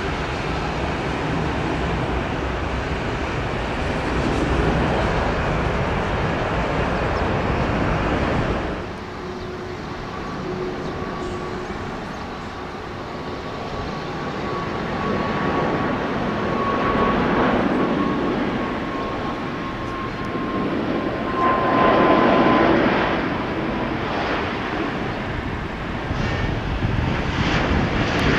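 Airbus A340-600's four Rolls-Royce Trent 500 jet engines running as the airliner passes. The noise drops off abruptly about nine seconds in. After that a thin steady whine comes through, and the engine noise swells twice.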